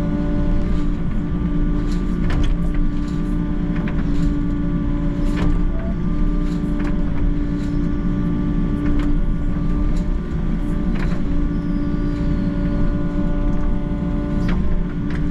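Volvo excavator running steadily under load, a constant pitched engine hum, with scattered sharp clanks and scrapes as the bucket digs into earth and stones.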